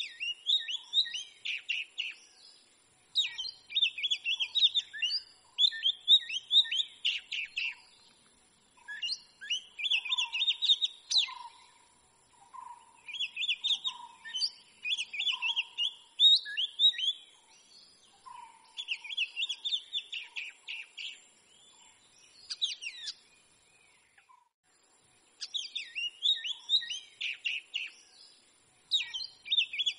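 Oriental magpie-robin singing: varied, rapid whistled phrases in bursts of a second or two, separated by short pauses, with a longer pause near the end.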